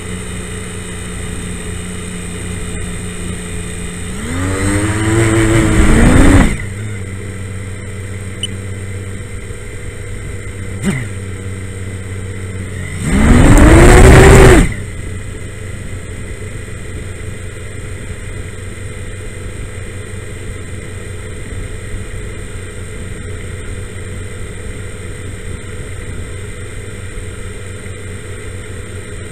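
Small FPV quadcopter's electric motors spinning with a steady whine, revved up and back down twice: a longer rising burst about four seconds in and another around thirteen seconds, each cutting off suddenly. The camera view does not change, so the craft does not lift off.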